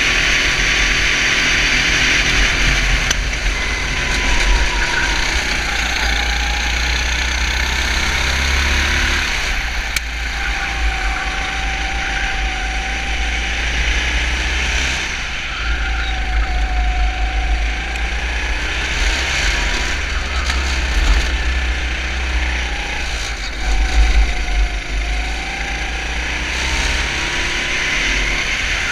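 250 cc four-stroke kart engine heard on board at racing speed, its note rising and falling as the driver gets on and off the throttle through the corners, over a steady low rumble.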